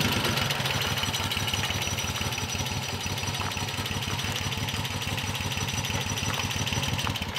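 Moto Guzzi motorcycle's transverse V-twin engine idling with a steady, even beat.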